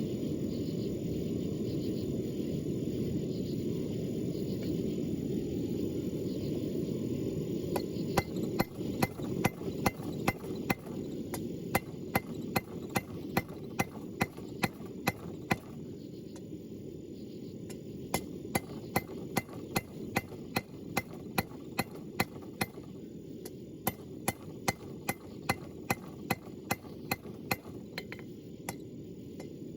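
Hammer striking hot rebar on an anvil, drawing the bar out, at about two blows a second with a couple of short pauses. The blows start about a quarter of the way in, over a steady low rushing noise.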